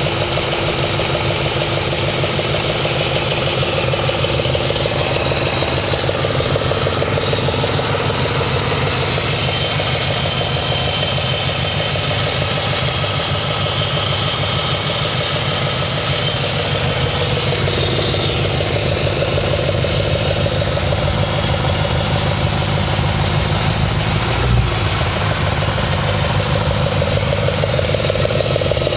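2004 Audi S4's 4.2-litre V8 idling steadily with a rapid, even knock running through it, the knock the owner is trying to diagnose. A single short thump stands out late on.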